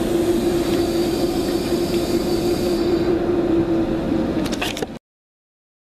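Locomotive-hauled passenger coaches running along the platform, a steady rumble of wheels on rail with a constant hum and a thin high tone for the first few seconds. A few clicks come near the end, then the sound cuts off suddenly.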